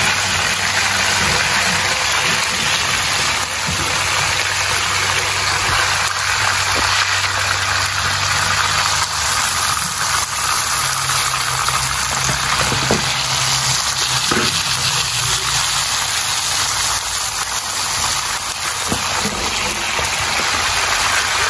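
Whole red snappers frying in a pan of hot oil, with a steady sizzle. A steady low hum runs underneath.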